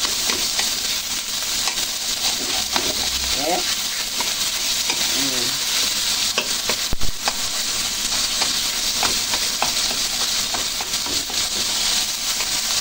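Tofu and fishballs sizzling in hot oil in a wok while a spatula stirs and breaks them up, with the spatula's scrapes and taps against the pan. One sharper knock about seven seconds in.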